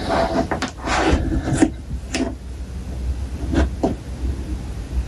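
Plastic action figure being handled and fiddled with: rubbing and scraping with several sharp clicks, most of them in the first two seconds and two more past the middle.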